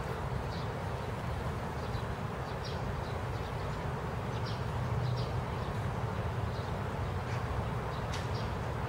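Steady hiss of rain falling on a garden and its wet paving, over a low steady rumble, with small birds giving short high chirps every second or so.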